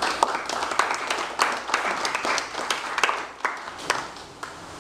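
A seated group applauding with uneven, scattered hand claps that thin out near the end.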